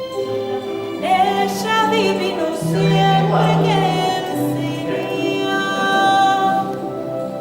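Music: a voice singing long held notes over sustained accompaniment, the voice coming in about a second in.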